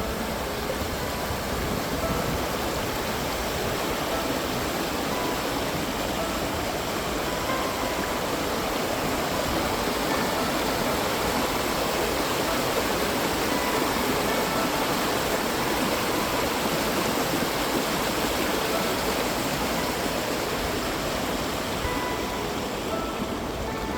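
River water rushing steadily, a dense even rush of flowing water.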